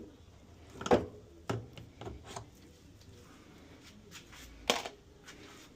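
Several separate knocks and clicks at irregular intervals, the loudest about a second in and another a little before the end.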